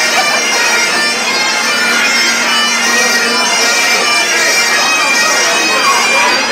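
Bagpipes playing loudly: a steady drone holds under the chanter's shifting tune.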